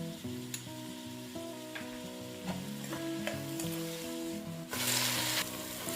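Sliced onions frying in hot oil, a steady sizzle that grows louder near the end, under soft solo guitar background music.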